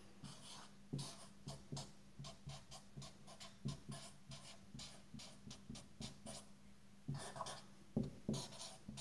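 Dry-erase marker writing on a whiteboard: faint squeaks and taps in many short, irregular strokes as equations are written out.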